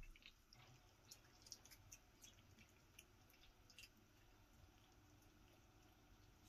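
Near silence: room tone with a few faint, short clicks and ticks.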